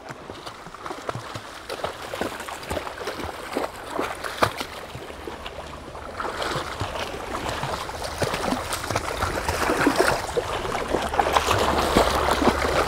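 Water sloshing and splashing as a person and two Labrador retrievers wade through a shallow, rocky creek: many small splashes, getting louder from about six seconds in.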